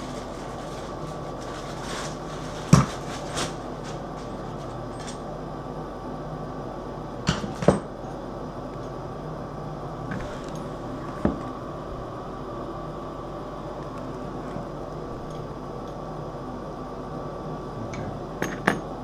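Bidet parts and metal fittings being handled and set down: a handful of scattered sharp clicks and knocks, the loudest about three seconds in, over a steady background hum.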